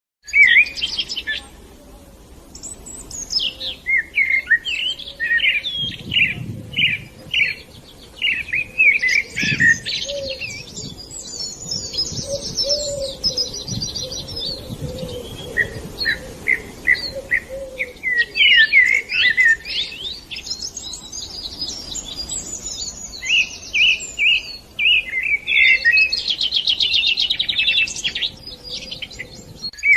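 Songbirds chirping and singing: a continuous run of quick, high-pitched chirps, repeated notes and rapid buzzing trills, with brief pauses between phrases.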